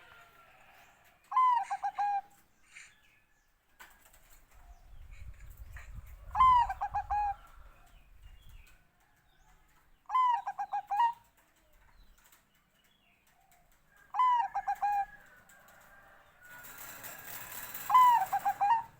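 Bangkok-type zebra dove (perkutut) cooing: a short phrase of clipped coo notes repeated five times, about every four seconds. A low rumble sits under the second phrase, and a burst of rustling noise comes under the last phrase.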